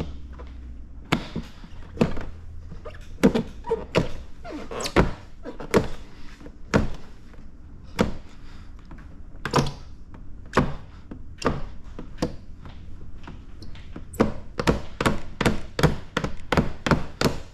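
Irregular sharp taps and knocks, about one a second at first and coming in quick runs near the end, from hands and tools working paint protection film down over the edge of a car's front bumper. A steady low hum runs underneath.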